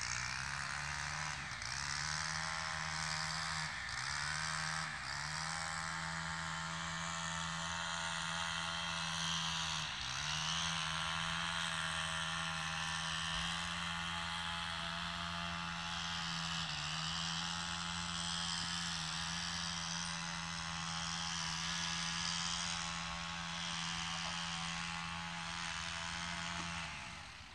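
An engine running at a steady speed, its pitch sagging briefly several times and then recovering.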